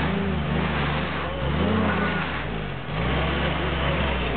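Willys jeep's four-cylinder engine revving in repeated surges, rising and falling in pitch every second or two, as the jeep strains to get out of snow while being pushed.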